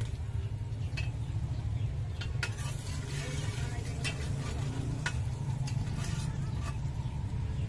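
Metal spoon stirring vegetables sautéing in a cooking pot, with sizzling and a few sharp clinks of the spoon against the pot, over a steady low rumble.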